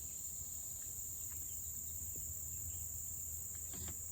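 Insects singing in a steady, high-pitched chorus, with a few soft clicks near the end.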